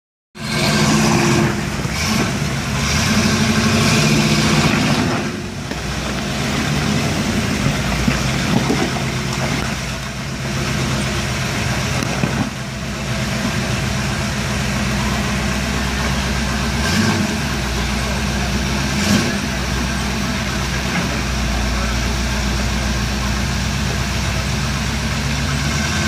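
Lifted off-road truck's engine running at low revs as it crawls over a rocky creek bed, with a few brief revs.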